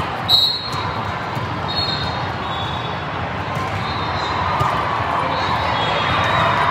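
Din of a large indoor volleyball tournament hall: many voices mixed with balls being hit and bouncing on the courts, the loudest a sharp hit about a third of a second in. Short, high, whistle-like tones cut through a few times.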